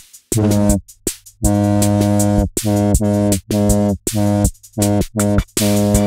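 Electronic music: a low buzzing tone cut into short repeated notes, with sharp drum-machine clicks in the gaps between them.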